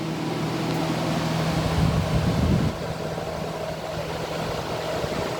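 Vintage GE Fashionette 6000 window air conditioner running on high fan with the compressor off: a steady rush of air over a low hum. A lower rumble is stronger at first and drops away about two and a half seconds in.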